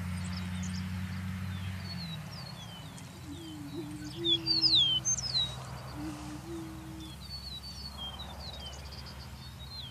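Greater prairie chickens booming on a lek: low, hollow moaning notes, each about a second long, repeated every couple of seconds. Over them come high, quick downward-sliding chirps, loudest about halfway through, and a low steady hum during the first two seconds.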